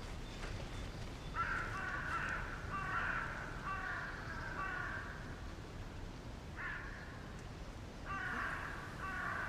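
Crows cawing: a run of harsh caws starting about a second and a half in, a pause, then more caws in the second half.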